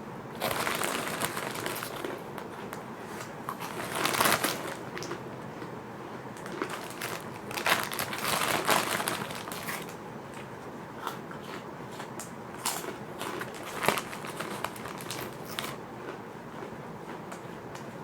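Close-up crunching of fish crackers and crinkling of their plastic packet, in irregular crackly bursts, loudest about four seconds in and again around eight to nine seconds, with scattered sharp crackles after.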